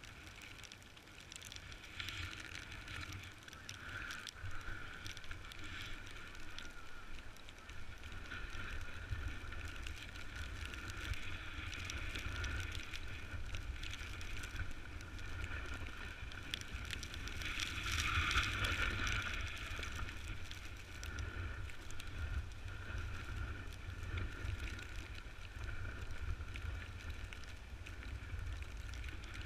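Snowboard sliding and scraping over snow with wind buffeting the microphone, the scrape swelling and fading with the turns and loudest a little past the middle.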